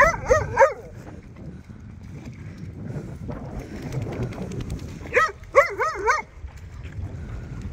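Puppies whining in short, high cries, each rising and falling in pitch: a quick run right at the start, and another run of about five a little past halfway. A low rumbling noise fills the gaps between.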